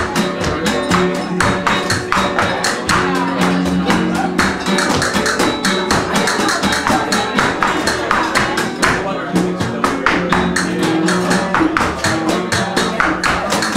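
Live flamenco music: nylon-string guitar and a horn playing held notes over a dense stream of quick, sharp percussive taps from the dancer's footwork and hand percussion.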